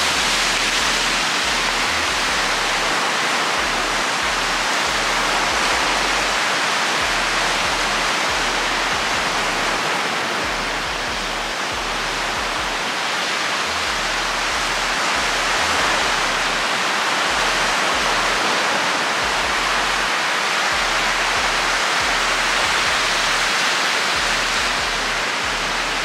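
Steady wash of ocean surf with slow, gentle swells, and wind buffeting the microphone in low, uneven rumbles.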